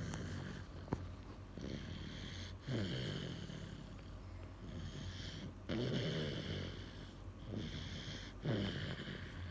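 Baby snoring in deep sleep: three slow snoring breaths, each heard on both the in-breath and the out-breath, about three seconds apart.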